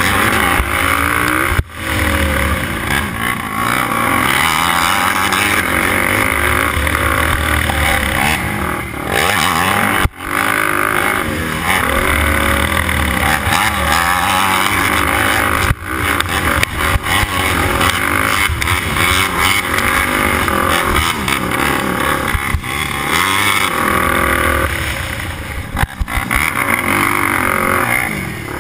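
Racing quad's engine at full race pace, revving up and falling off again and again through the gears, heard from on board the quad with heavy wind noise over it. The sound drops for an instant four times.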